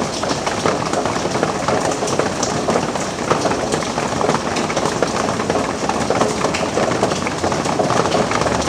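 Rain falling steadily: a dense, even patter of countless drops with sharp individual hits.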